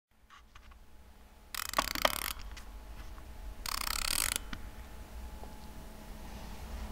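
A small mechanism sounds twice, in short rasping bursts of under a second each, about two seconds apart, over a low steady rumble.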